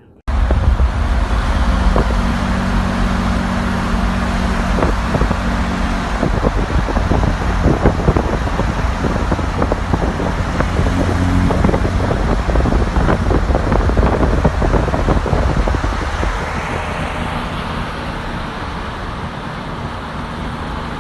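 Car driving at speed, heard from on board: a steady low engine drone under road and wind noise, with frequent short buffets on the microphone. It eases off somewhat near the end.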